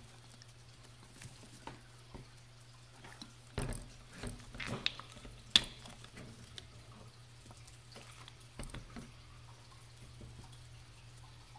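Light clicks and rustles of a wristwatch with a metal expansion band being handled and shifted on a wooden tabletop, busiest from about three and a half to five and a half seconds in and ending in one sharp click. A low steady hum runs underneath.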